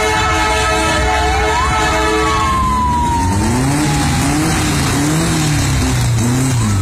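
Volkswagen Beetles driving past in a parade: a held horn-like tone and a siren-like whistle gliding up then slowly down in the first half, then from about halfway an engine revved up and down again and again.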